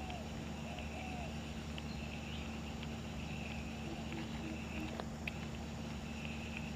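Swamp ambience of insects chirping in pulses that come and go, over a steady low hum, with one sharp click about five seconds in.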